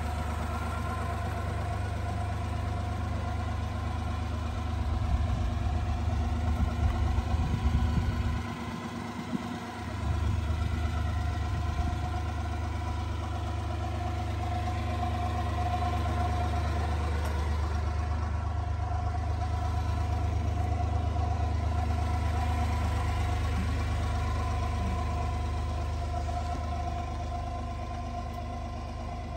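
1988 Honda Acty kei truck's engine idling steadily under a low rumble, which swells for a few seconds and then drops out briefly about nine seconds in.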